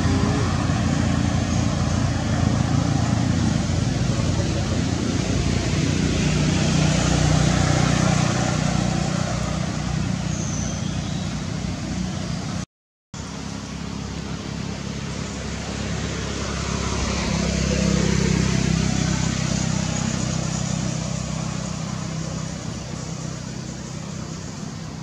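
Road traffic noise: motor vehicles passing, the rumble swelling and fading twice. The sound cuts out completely for a moment about halfway through.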